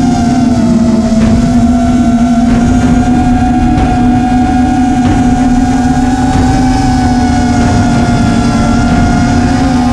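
FPV quadcopter's Emax 2400kv brushless motors and propellers running steadily, a loud buzzing drone whose pitch wavers slightly with throttle, over a low rush of wind on the on-board microphone.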